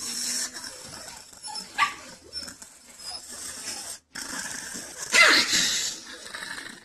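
A small long-haired Chihuahua making a few short whining yelps as a finger pokes at its nose. The loudest call comes about five seconds in, and each call falls in pitch.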